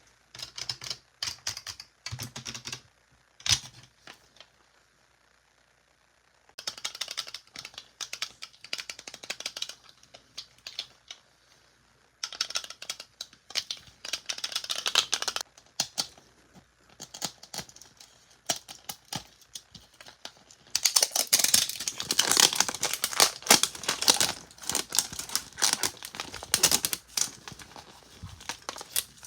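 Small plastic toys and their packaging being handled: quick clicks and taps of plastic pieces, with stretches of crinkling and rustling, the busiest about two-thirds of the way through.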